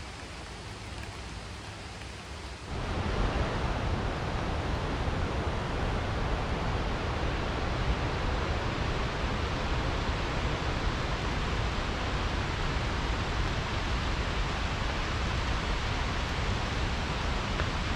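Wenatchee River running high with spring runoff, a steady rushing of whitewater that jumps noticeably louder about three seconds in and then holds even.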